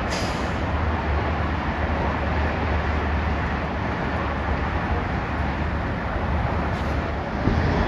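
Steady road traffic rumble from a freeway overpass, with a constant low drone underneath, getting louder near the end.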